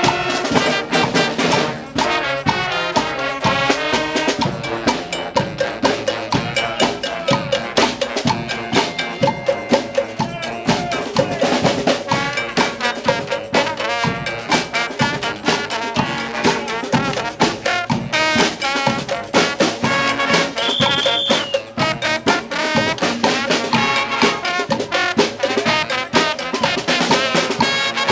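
Live street band playing: trumpets and trombones over a steady drumbeat.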